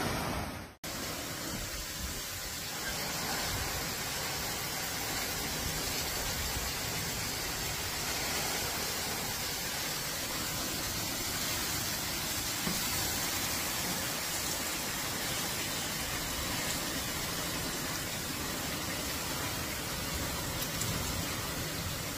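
Torrential rain falling steadily, a dense even hiss. In the first second a loud rush of floodwater cuts off abruptly.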